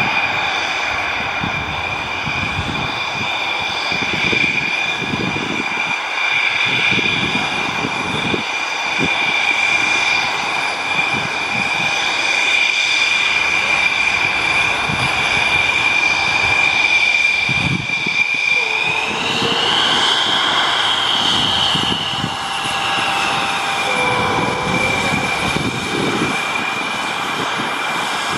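The twin Snecma M88 turbofans of a Dassault Rafale B fighter jet taxiing at low power: a steady high whine over an uneven low rumble. About two-thirds of the way through, the whine rises in pitch for a few seconds, then settles back.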